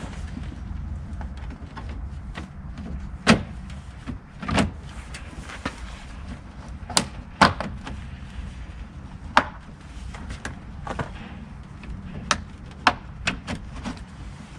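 Sharp plastic clicks and knocks as a Mercedes C-Class W204 front grille is pushed and snapped back into its mounts, a dozen or so taps at uneven intervals, over a steady low rumble.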